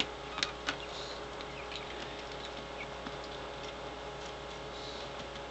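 Coturnix quail moving about in a plastic brooder tub: a few faint ticks and taps, mostly in the first second, over a steady low hum.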